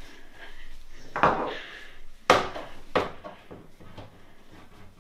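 Knocks and clinks from a pull-out pantry drawer as a toddler rummages among the glass baby-food jars in it: three sharp knocks about one, two and three seconds in, the middle one loudest, then a few lighter clicks.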